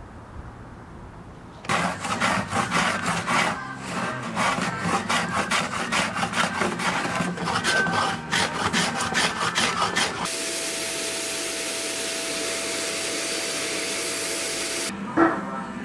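Hand plane shaving a curved wooden kayak frame strip in quick repeated strokes. About ten seconds in, this gives way to a steady machine whir with a faint constant tone.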